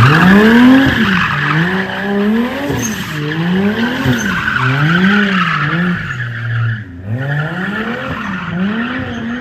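Sports car being drifted: its engine revs up and down about once a second while its tyres squeal continuously.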